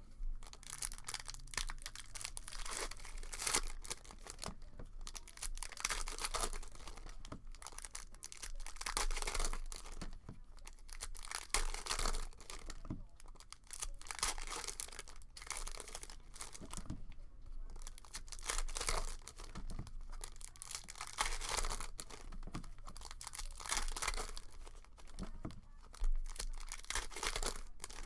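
Hockey card packs' foil wrappers being torn open and crinkled: uneven bursts of tearing and rustling, on and off.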